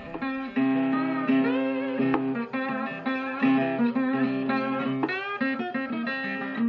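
Background music: a guitar piece with some notes that slide and bend in pitch.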